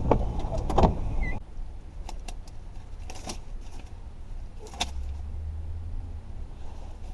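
Handling noises inside a car: rustling and sharp clicks, then a power window's motor running for about a second and a half near the end.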